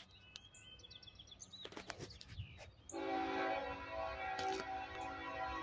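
Birds chirping, then about three seconds in the air horn of an approaching Norfolk Southern freight locomotive starts sounding: a steady chord of several notes, held.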